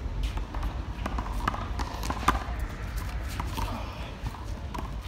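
A rubber handball being played in a rally: irregular sharp slaps as the ball is struck by hand and smacks off the concrete wall and court, the loudest a little past two seconds in, over a steady low rumble.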